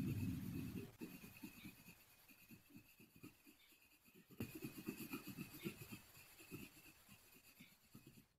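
Pencil scratching on paper in short, quick strokes, busier around the middle, while a low rumble fades out in the first second.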